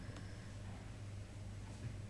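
Quiet room tone with a steady low hum and a single faint click shortly after the start.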